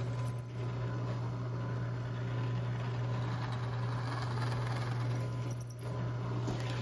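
Drill press running with a steady low hum as its bit bores holes through a figured black walnut plaque.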